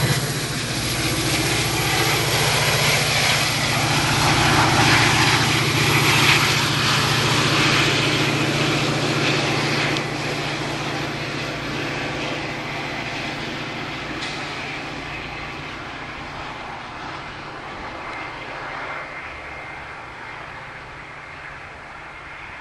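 Metra diesel commuter train pulling away: the locomotive's steady engine drone and the wheel and rail noise fade gradually as the train recedes down the track.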